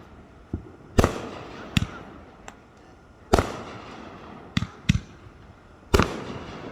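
Fireworks going off: a string of sharp bangs with echoing tails, three loud ones a couple of seconds apart and smaller pops in between.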